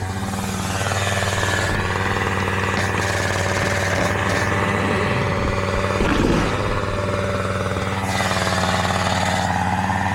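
Two-stroke chainsaw running steadily at a held engine speed while cutting dead oak, with one brief louder surge about six seconds in.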